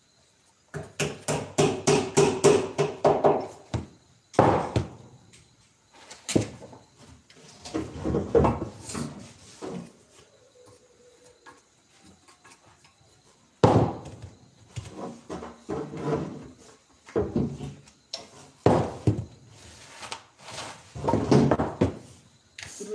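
Hand tool knocking and scraping on small blocks of wood, in bursts of rapid strikes with short pauses between: hardened wood glue being cleaned off the pieces.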